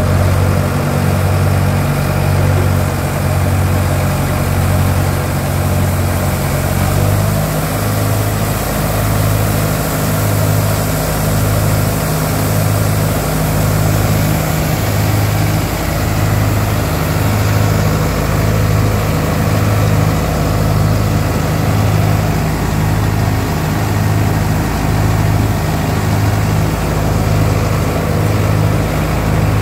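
Mahindra Yuvo tractor's diesel engine running a tractor-mounted thresher under load while crop is fed and grain is blown out of the spout, a steady low hum that throbs about once a second. The pitch steps up slightly about seven seconds in.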